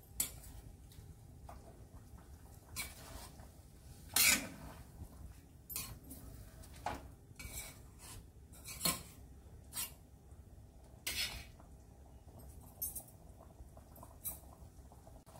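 A spoon knocking and scraping against a stainless steel pan as a watery chicken curry is stirred: irregular sharp clinks about once a second, the loudest about four seconds in.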